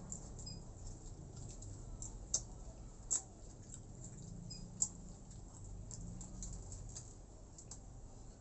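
A person eating close to the microphone: chewing and mouth smacking, with a scatter of small sharp clicks, three of them louder.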